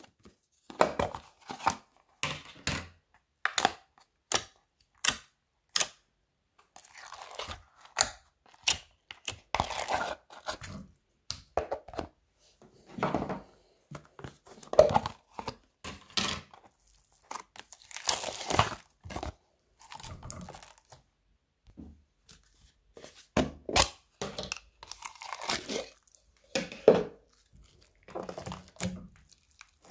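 Slime being handled and tipped out of plastic tubs into a bowl: a quick run of sharp clicks and pops, then longer crackling, tearing stretches as crusty, crunchy slime is pulled and pressed.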